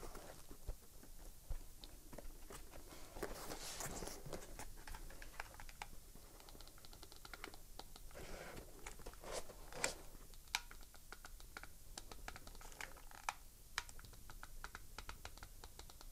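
Faint handling noises: many light clicks and ticks, with bursts of rustling, as a foam hat, a plastic tube of LED lights and a hot glue gun are handled and moved about.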